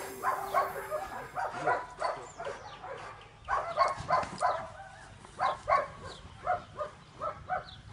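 A German Shepherd Dog barking in short, repeated bursts, about one or two a second.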